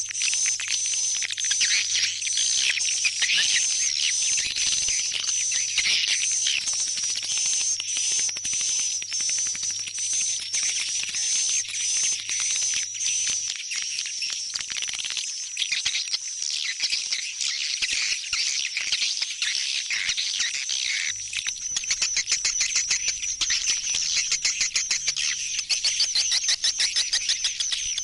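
Swiftlet calls: a dense chorus of high twittering chirps. After about 21 seconds it changes to a faster, even run of pulsed chirps. This is a swiftlet lure call, played to draw swiftlets home into a swiftlet house.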